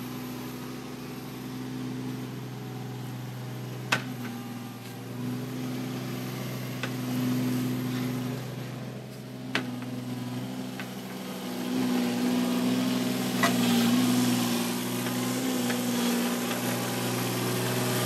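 Kubota KX018-4 mini excavator's diesel engine running steadily while it grades soil, louder in the last few seconds. A few single sharp clicks or knocks stand out above the engine.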